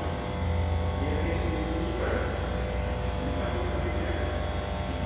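A steady low rumble with a constant hum, and faint indistinct voices in the background.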